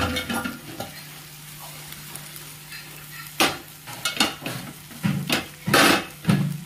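Spatula stirring freshly added chopped okra in a hot frying pan: a sharp clink at the start, then from about halfway through a run of scraping strokes against the pan.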